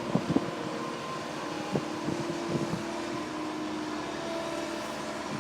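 Heavy construction machinery with a diesel engine running steadily, its hum holding a few steady tones, with a few faint knocks.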